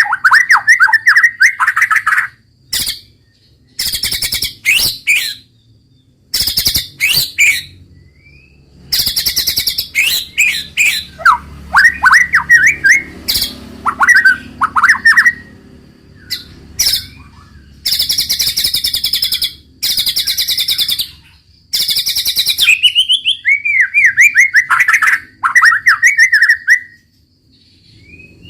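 White-rumped shama (murai batu) singing loudly in phrases of one to two seconds with short gaps. Fast rattling trills alternate with quick falling whistles.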